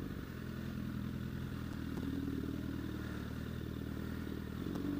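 Honda CBR1000RR's inline-four engine running steadily at an even pitch.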